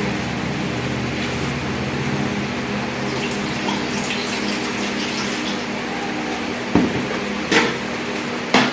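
Water running steadily into a bottle sterilizer pot as it is filled to about two inches, with a few sharp knocks near the end.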